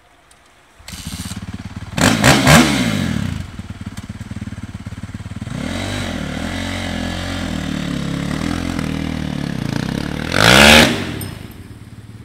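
Dirt bike engine starts about a second in and is revved hard twice. It then runs with a few blips before revving up sharply near the end as the bike pulls away up a gravel bank.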